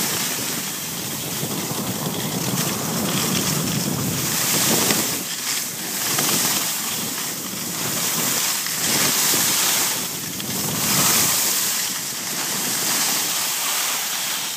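Wind rushing over the microphone and skis sliding on snow while skiing downhill: a steady rushing noise that swells and fades every second or two.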